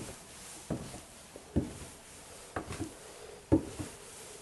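Footsteps going down a staircase: four even footfalls, a little under a second apart.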